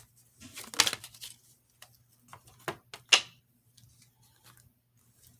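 Tarot cards being handled and drawn from the deck: a few short, crisp card flicks and rustles, the sharpest about three seconds in.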